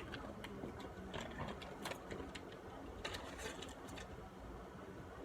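Faint rustling and scattered light clicks of hands handling the iPhone XR box and its packaging.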